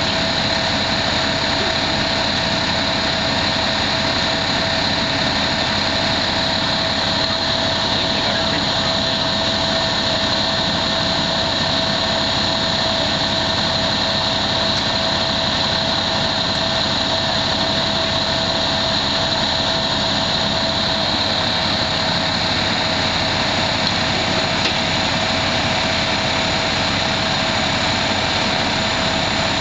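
Fire engine's engine running steadily, a constant drone with an unchanging whine over it.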